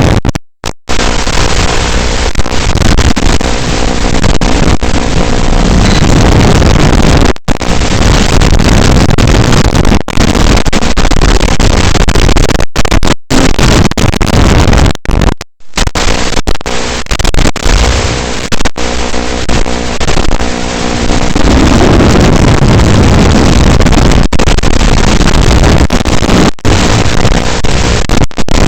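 Loud, steady hiss-like noise from an FPV drone's recorded video feed, with a faint hum under it. It drops out suddenly for short moments several times, the way a weak radio link breaks up.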